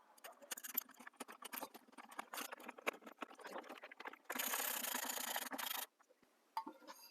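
Mounting hardware of an outdoor light fixture being handled and fitted: a quick run of small clicks and scrapes, then a steady rasping noise for about a second and a half that stops abruptly, then a few more clicks.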